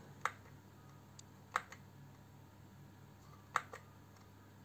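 Button clicks on an Immergas heat pump's wall controller as the service access code is keyed in: one click, then two quick pairs of clicks about two seconds apart. A faint steady low hum runs underneath.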